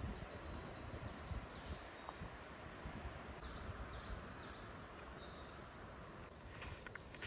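Forest ambience: small birds singing short, high chirping phrases on and off, over a low, uneven rumble.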